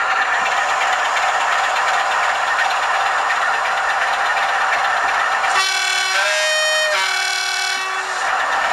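Sound-fitted OO gauge model Class 47 diesel locomotives idling through their small onboard speakers, a steady engine noise. About five and a half seconds in, the Bachmann 47346 sounds its two-tone horn, low, then high, then low again, for about two and a half seconds.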